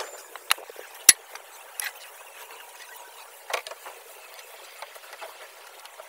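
A few scattered sharp clicks and taps of a screwdriver and screw on a painted steel rail over a faint hiss. The loudest, sharpest click comes about a second in.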